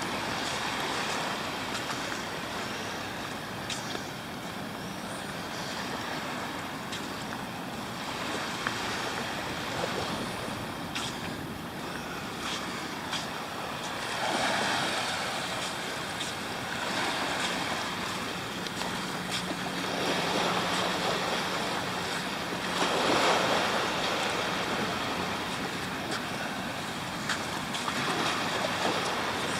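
Sea surf breaking and washing up on the shore, with wind on the microphone; the surf swells louder about halfway through and again about three-quarters through.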